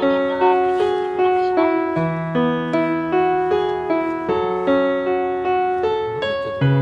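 Background piano music: a melody of evenly paced, gently struck notes, each ringing out and fading.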